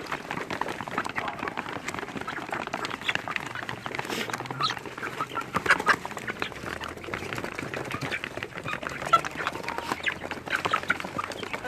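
Flock of farmyard poultry calling: many short, overlapping clucks.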